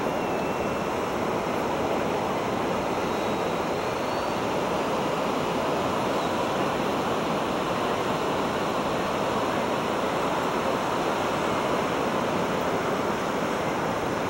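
Steady rush of surf breaking on the beach, mixed with wind on the microphone. In the first few seconds there is a faint whine, wavering in pitch, from the radio-controlled Yak 55 model aerobatic plane.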